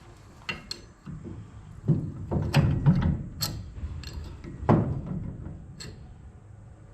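Metal parts clinking and knocking as they are handled and sorted: several sharp clinks, with heavier knocks between about two and five seconds in.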